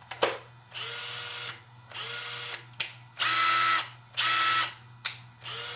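Makita LXT brushless sub-compact impact driver run in five short trigger pulls, each a steady motor whine about half a second long; the middle two are louder than the rest. A sharp click comes just before the first pull.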